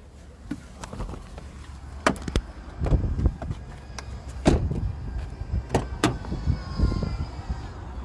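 Clicks and knocks of a car door being opened and someone climbing out of the car, with handling noise on the phone.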